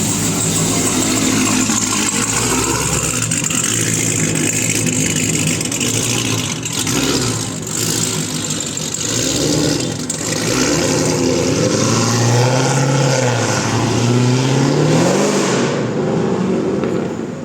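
Dodge Challenger engine running, then revved in the second half: its pitch rises and falls a few times, with a last climb shortly before the end.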